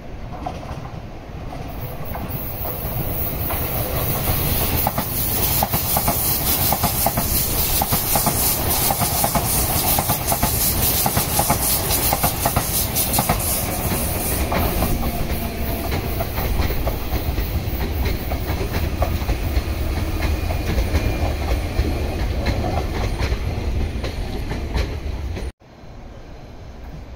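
Electric commuter train passing close at speed: a loud, steady rushing of wheels on rail, with the rapid clack of wheels running over rail joints. The sound cuts off suddenly near the end and a quieter train sound follows.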